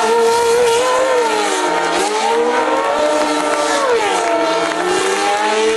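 An A1GP race car's Zytek V8 engine revving up and down as the car spins donuts, its pitch rising and falling in slow waves about every two to three seconds.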